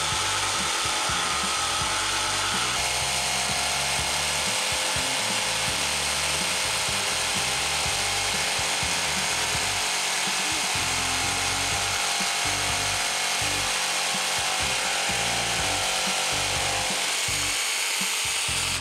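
Bosch cordless jigsaw running at full speed and sawing steadily through a wooden board, cutting off abruptly at the end.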